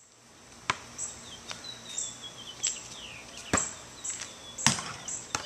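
A basketball making three sharp knocks as it is bounced and shot on an asphalt driveway: one under a second in, then two more at about three and a half and just under five seconds. Birds chirp in short falling whistles between them.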